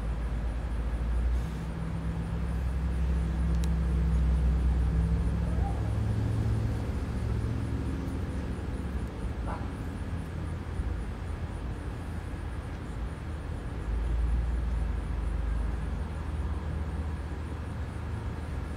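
Low outdoor background rumble with a low hum that shifts in pitch, swelling a little near the start and again about two-thirds of the way through.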